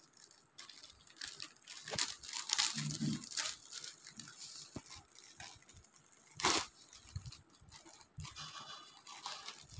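Plastic courier mailer bag crinkling and crackling as it is handled and torn open by hand, in short irregular rustles. One louder sudden crackle comes about two-thirds of the way through.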